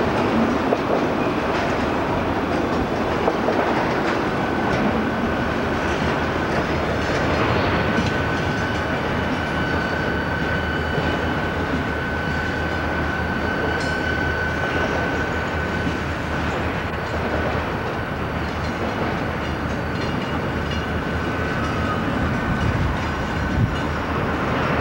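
Freight train of enclosed auto-rack cars rolling past, its wheels rumbling and clicking over the rails. A steady high-pitched squeal holds from about four seconds in until near the end.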